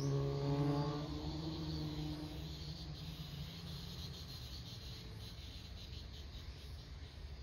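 A low ringing tone with overtones, like a struck singing bowl, fades away over the first two seconds. Insects chirp faintly in quick repeated pulses.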